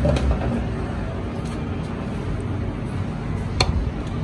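Steady background noise with a low rumble, and a single sharp click about three and a half seconds in.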